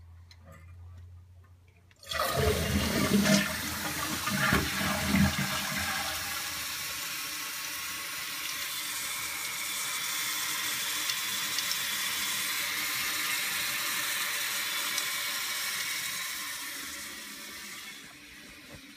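2008 Jacuzzi Maxima 1.6-gallon-per-flush toilet flushing about two seconds in: a loud rush of water down the bowl for a few seconds, then the tank refilling with a steady hiss that tapers off near the end.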